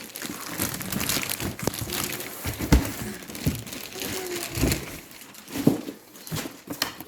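Packaging around chair parts crinkling and rustling as the parts are unwrapped and handled, with a few sharp knocks, the loudest nearly three seconds in and again near six seconds.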